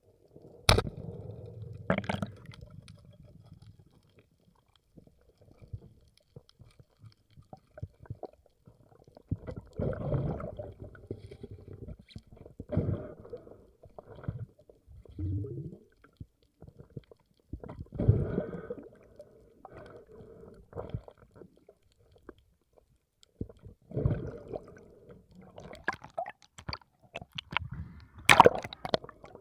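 Water gurgling and sloshing in irregular bursts every few seconds, with a few sharp clicks; the loudest click comes near the end.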